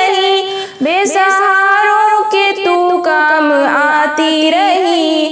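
A female voice singing an Urdu nazm solo, drawing the lines out in long, wavering held notes, with a short break for breath a little under a second in.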